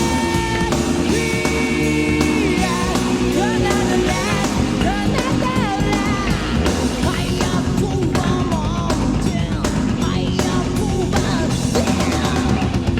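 Japanese melodic heavy metal recording with drums, distorted guitars and a lead line that holds long notes for about two seconds, then breaks into fast, bending runs.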